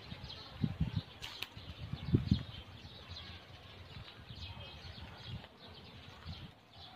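Faint birds chirping in the background. There are low rumbling bumps in the first two seconds or so, and a single sharp click a little over a second in.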